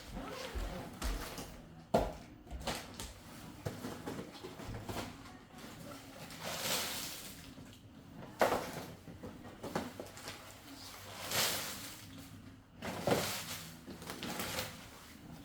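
Packing noises: bags and packages rustling and items knocking as they are handled and put into luggage, with a few sharper knocks.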